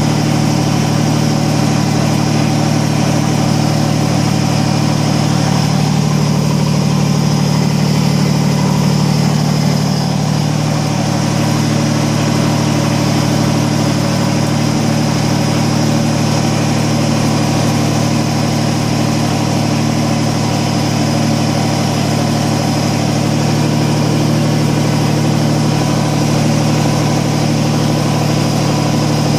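Kubota BX25D compact tractor's three-cylinder diesel engine running steadily at a constant throttle.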